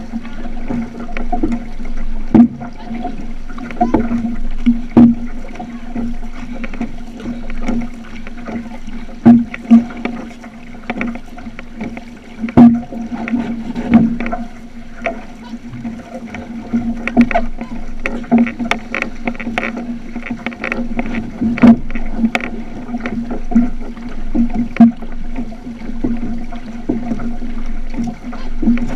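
Outrigger canoe under paddle: water slapping and splashing against the hull close by, with irregular sharp splashes from the paddle strokes over a steady low hum.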